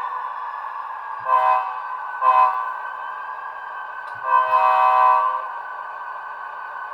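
Bachmann GP35 model diesel locomotive's DCC WOW sound decoder blowing its chord horn through the model's small speaker: two short toots, then a longer blast of about a second, over the steady running sound of the decoder's diesel engine. It is very loud.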